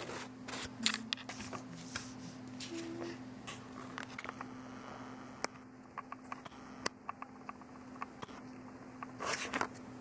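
Scattered short scratches, clicks and rustles of paper and painting materials being handled, with a louder rustle near the end, over a steady low hum.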